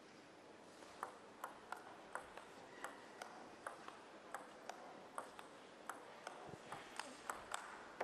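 Table tennis ball knocking back and forth between bats and table in a rally: faint, sharp clicks about three a second, starting about a second in.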